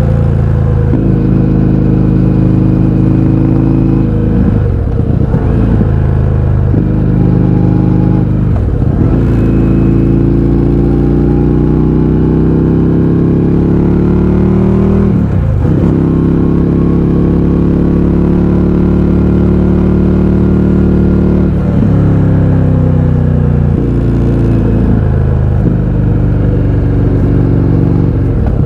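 Indian FTR 1200's V-twin engine running loud through a baffle-less Akrapovič exhaust under riding load. The engine note climbs in pitch through several pulls, the longest in the middle, and dips briefly a handful of times between them.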